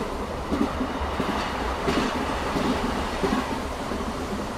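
BLS passenger train heard from inside the coach: the wheels knock over rail joints in pairs about every two-thirds of a second over a steady low running rumble. The joints come close together because this stretch near Eggerberg is laid with very short rails.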